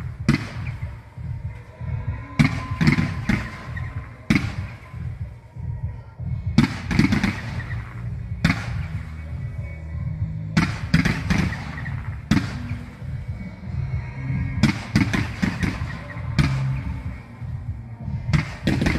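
Fireworks display: salvos of rising comet shells going off in quick clusters of bangs and crackles, a new cluster roughly every two seconds.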